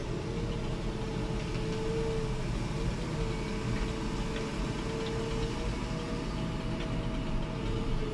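Diesel engine of forestry machinery running steadily, with a held whine over the engine noise and a few faint ticks.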